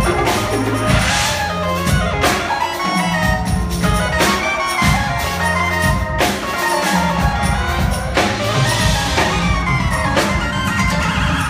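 Live jazz-fusion band and full orchestra playing together: drum kit hits punctuate a steady bass line, with keyboards and many pitched instruments on top.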